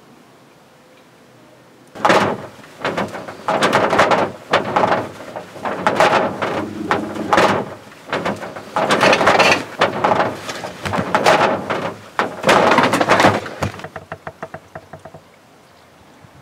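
Loud, harsh horror sound-effect noise in irregular surges with sharp knocks. It starts suddenly about two seconds in and ends in a quick stutter that fades out.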